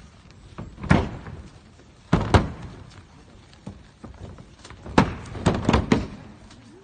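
Aikido partners being thrown and hitting the mat in breakfalls: a series of sharp thuds and slaps, one about a second in, another a little after two seconds, then four in quick succession about five to six seconds in.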